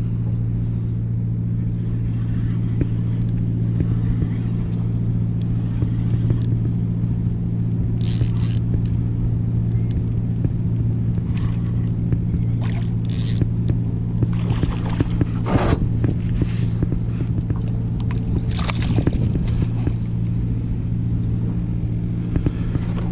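An engine running steadily at constant speed, a low even drone, with a few brief scrapes and rattles over it.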